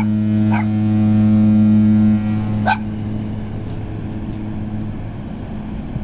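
Large ship's horn sounding one long, deep blast that cuts off a little over two seconds in, its low hum fading away over the next few seconds. Three short high sounds are heard over it.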